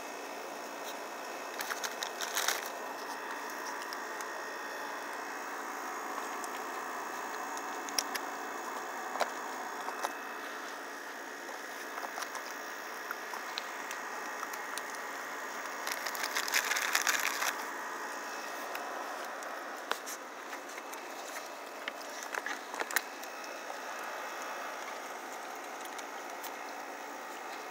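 Raccoon kits feeding on crackers from plastic trays: scattered sharp clicks and short crackling rustles, the loudest burst about two-thirds of the way through, over a steady background hiss.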